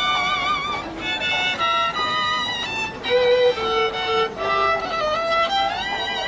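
A violin bowed by a street fiddler, playing a slow melody of held notes with a wide, wavering vibrato and a sliding rise in pitch near the end.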